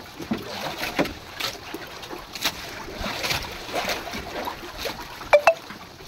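Wind and water lapping on a small outrigger boat, with scattered knocks and clatter on board; two sharp knocks close together about five seconds in are the loudest sounds.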